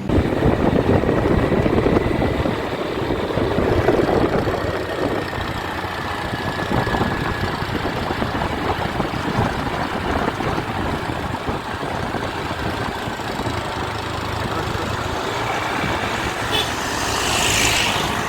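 Heavy road vehicles, buses among them, passing close by with loud engine and exhaust noise, loudest in the first few seconds. A brief high-pitched sound comes near the end.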